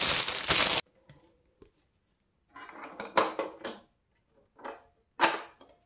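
Plastic wrapping crinkling for the first second, then the plastic cover being pressed onto the stand mount of an LG OLED TV: scraping and sharp snap-clicks about three seconds in and again about five seconds in as it clips into place.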